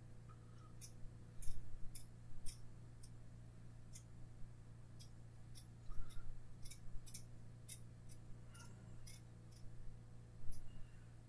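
Irregular short, sharp scrapes and clicks of a slim metal hobby tool working over a small plastic scale-model part, about fifteen strokes at uneven intervals: a quick cleanup of the part.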